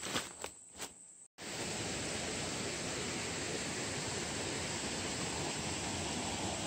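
Three soft footsteps, then the sound cuts abruptly and a steady rush of a rocky mountain stream and its small cascades starts about a second and a half in.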